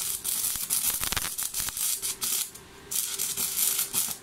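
Stick-welding (MMA) arc from a 2.4 mm electrode at 130 A, crackling and spitting steadily as a fillet weld is laid on 4 mm flat steel. The arc drops out for about half a second just past halfway, then crackles on again.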